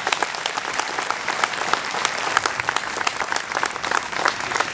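Audience applauding: many people clapping hands at once, a steady patter of claps.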